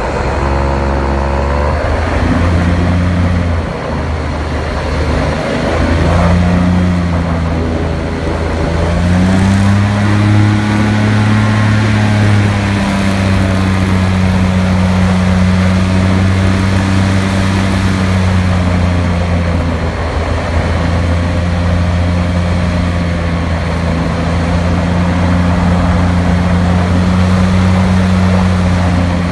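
Airboat engine and air propeller running loud and steady, the engine pitch rising about nine seconds in and then holding.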